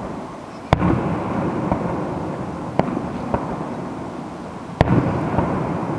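Aerial fireworks shells bursting: two loud booms, one about a second in and one about five seconds in, with a couple of smaller bangs between, each followed by a low rolling echo.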